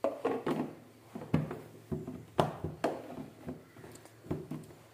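Plastic snap-on lid being pressed down onto a plastic food container, snapping into place around the rim: a dozen or so sharp, irregular clicks and knocks as it is sealed shut.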